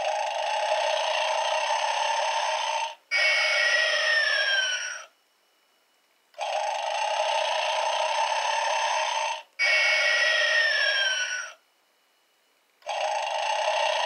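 Gemmy Animated Snoring Santa toy snoring: a long in-breath snore of about three seconds, a brief break, then a two-second out-breath with a falling whistle, and about a second of silence before the cycle repeats. Two full snores and the start of a third.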